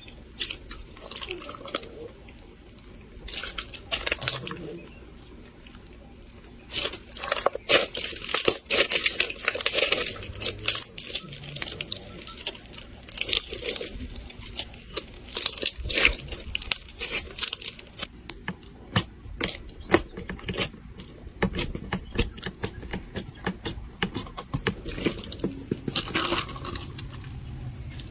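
Crunchy textured slime being squeezed and pressed by hand, giving dense crackling and crunching pops. Sparser and quieter for the first several seconds, then busier and louder from about seven seconds in.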